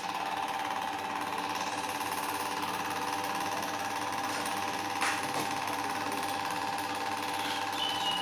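A power tool's motor running steadily with a fast mechanical chatter, with one sharp click about five seconds in. Near the end a series of short high chirps starts.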